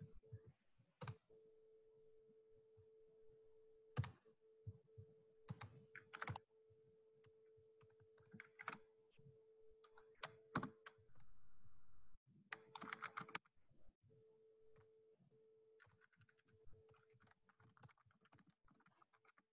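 Faint, irregular computer keyboard typing and clicks over a steady low electrical hum.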